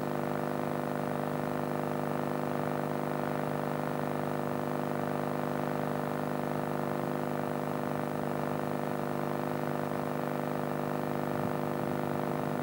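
Steady electrical buzz, like mains hum on a poor-quality soundtrack, holding one pitch and level throughout.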